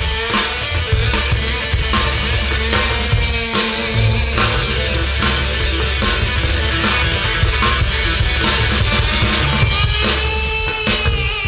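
Live rock band playing an instrumental passage: drum kit keeping a steady beat under guitar and keyboard, loudly amplified.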